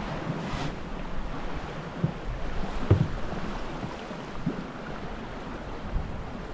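Water rushing and lapping along a small sailboat's hull as it sails through choppy water, with wind buffeting the microphone. A few short dull thumps, the loudest about three seconds in.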